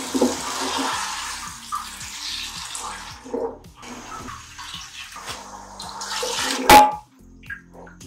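Water poured into a hot pot of fried potatoes and masala, rushing and splashing, with a ladle stirring through it. A single sharp knock about seven seconds in.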